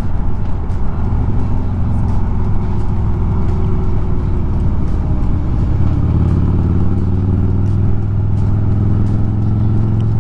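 Harley-Davidson V-twin engine running under way, heard from the rider's seat with wind rushing over the microphone. The engine's pitch shifts up and down in the second half as the bike changes speed.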